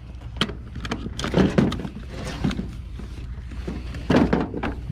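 Irregular knocks and rustling of boxes and items being handled, over a steady low hum.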